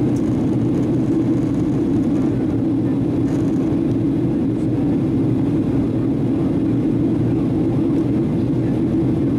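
Boeing 737-700 cabin noise in flight: a steady, even rumble of engine and airflow during the descent toward landing.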